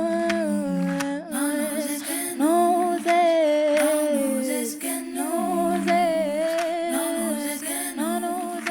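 Layered a cappella female vocal harmonies: several voices hold and glide between notes together, with no instruments. This is the song's vocal layer heard on its own.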